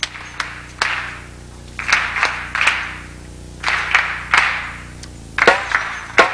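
An audience clapping a practised rhythm together with a hand drum, the claps coming in bunches about every two seconds between sharp single strikes, as the group rehearses a rhythm with a cutoff.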